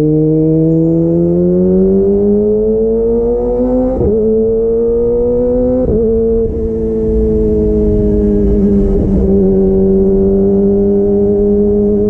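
Kawasaki ZX-25R 250 cc inline-four through a DX Generation Pro Race exhaust with its dB killer removed, pulling and rising in pitch. Its note breaks briefly twice, about four and six seconds in, at gear changes, and then settles at a nearly steady engine speed while cruising.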